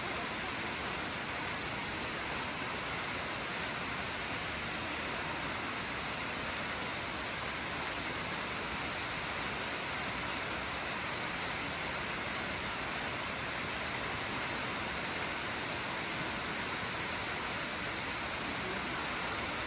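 Nachi Falls, a tall waterfall, pouring: a steady, even rush of falling water.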